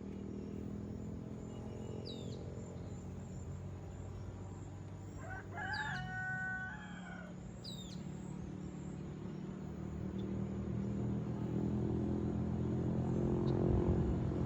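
A rooster crows once, about six seconds in, a call of about a second and a half. Short high bird chirps come a few seconds before and after, over a steady low rumble that grows louder near the end.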